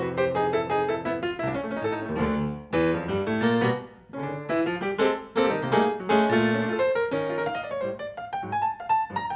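Jazz piano playing quick runs of notes and chords, with a brief lull about four seconds in; a live FM radio broadcast recorded onto cassette tape.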